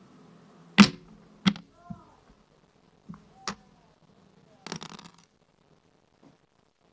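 Backgammon checkers clacked down on a wooden board: a loud sharp click about a second in, more a half second later and around three and a half seconds. Near the five-second mark comes a quick rattle of dice thrown and tumbling across the board.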